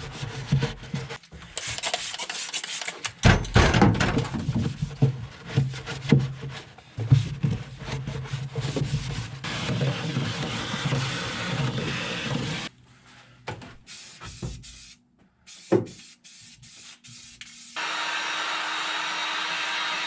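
Scrubbing a car's metal battery tray clean with degreaser, irregular rubbing and scraping strokes with occasional knocks. After a quieter stretch with a few clicks, a steady blowing hiss starts near the end.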